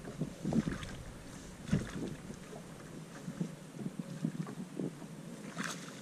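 Water splashing at the boat's side as a hooked smallmouth bass thrashes at the surface while being landed by hand, with wind on the microphone; a sharper splash near the end as the fish is pulled from the water.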